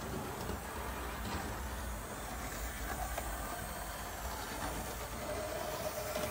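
Small OO gauge model tank locomotive running along sectional track, its electric motor whirring steadily with faint clicks from the wheels on the rails.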